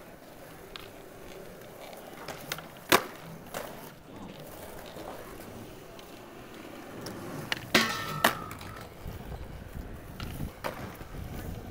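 Skateboards rolling on smooth concrete, broken by sharp clacks of the boards popping and landing: a loud one about three seconds in and a loud pair with a brief ring a little before two-thirds through. A low rumble builds near the end.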